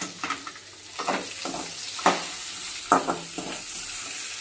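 Coconut slivers and sliced onion sizzling in hot oil in a pan while a spatula stirs them, with a scraping stroke about every half second to a second over the steady sizzle.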